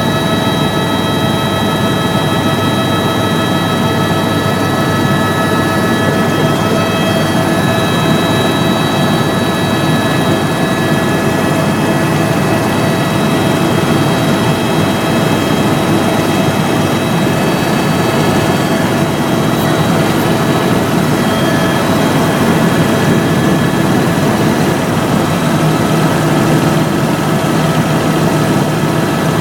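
Helicopter in flight, heard from aboard: a steady engine and rotor drone with a high steady whine over it, and a lower hum that grows stronger near the end.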